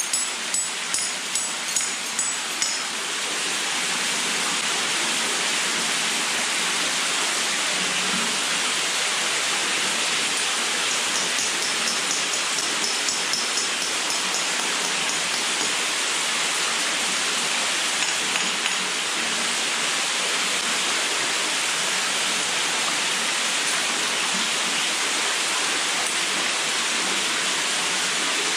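Hammer striking a steel anchor bolt in rock, two to three ringing metallic blows a second, stopping about three seconds in. A steady rushing hiss then takes over.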